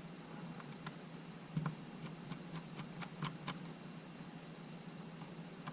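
Light clicks and taps of small tools and parts being handled on a camera body during disassembly, a cluster of several quick clicks about three seconds in, over a steady low hum.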